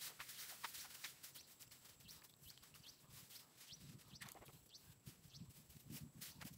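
Quiet field sounds: scattered faint ticks and short chirps, with soft rustling and mud sounds in the second half as a bundle of rice seedlings is handled in the wet paddy.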